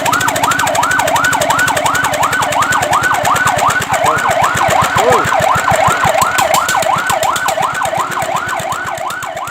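Fire truck siren in a fast yelp, its pitch sweeping up and down about three times a second, getting a little quieter near the end.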